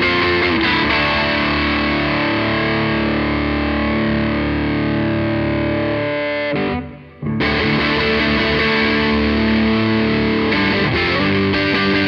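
Electric guitar played through the overdrive channel of a Blackstar HT20R MKII, a 20-watt all-valve amp, giving a distorted tone. Sustained chords ring out, with a brief break about seven seconds in before the next chords.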